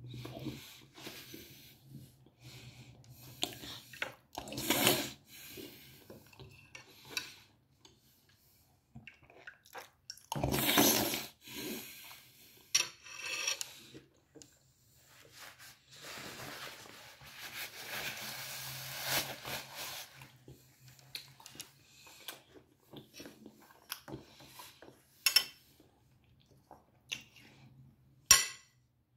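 A man eating close to the microphone: chewing and lip smacking, with scattered clicks and knocks, and a few seconds of steady noise a little past halfway.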